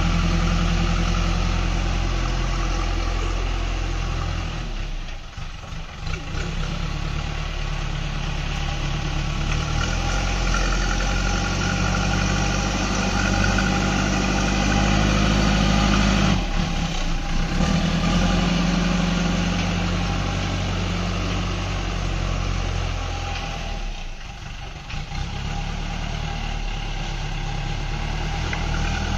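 JCB backhoe loader's diesel engine running steadily while the machine works soil with its front bucket. The note drops back briefly twice, about five seconds in and again near the end, and changes pitch about two-thirds of the way through as the throttle shifts.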